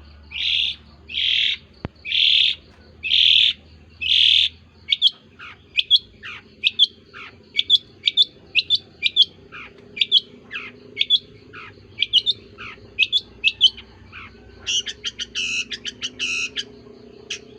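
Long-tailed shrike calling: five harsh calls about a second apart, then a run of quick, sharp notes falling in pitch, and a fast chatter near the end.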